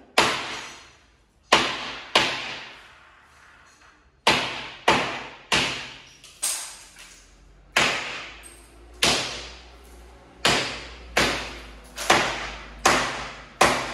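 Hammer blows on ceramic wall tiles, each a sharp crack with a brief ringing tail, coming about once a second with a two-second pause after the first few. The tiles are being smashed off the wall.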